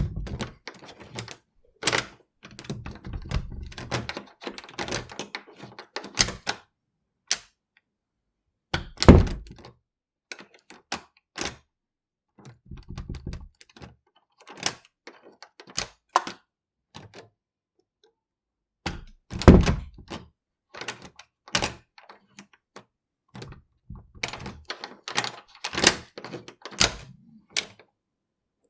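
A room door being worked with a key: the key rattling and turning in the lock, the latch and handle clicking, the door opened and shut with two heavy thuds, about 9 seconds in and about 19 seconds in.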